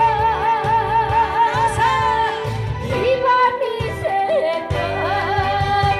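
Woman singing live through a microphone and PA, holding one long note with a wide vibrato for the first two seconds, then shorter phrases, over band backing with keyboard and saxophone.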